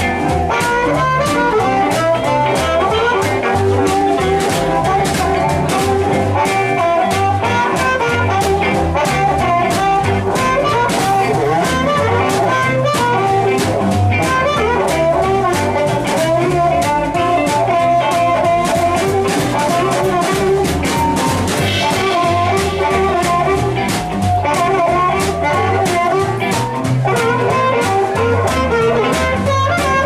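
Live blues band playing an instrumental passage: a harmonica played into a vocal microphone leads over electric guitars, an upright double bass and a drum kit keeping a steady beat.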